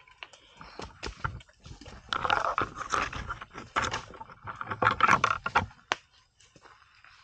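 Asian elephant feeding, with crackling and rustling of leaves and twigs as it breaks and crunches vegetation, loudest between about two and six seconds in.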